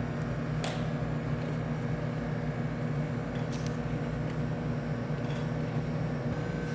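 Steady machine hum with a few faint clicks.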